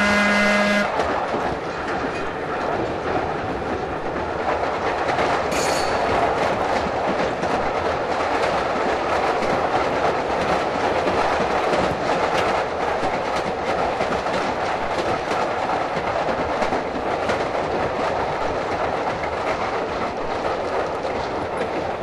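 Interior of Pacific Electric "Hollywood" interurban car 1801 running along the line: a steady rumble of wheels and motors with a quick clicking over rail joints. The car's whistle is sounding at the start and cuts off just under a second in, and a brief high squeal comes about six seconds in.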